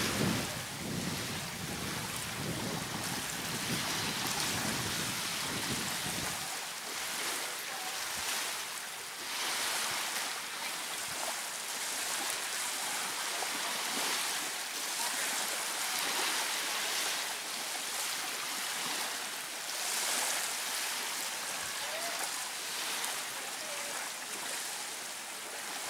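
Small waves lapping and washing up onto a beach of coarse coral sand: a steady hiss that swells and fades every few seconds. Wind rumbles on the microphone for the first six seconds or so, then drops away.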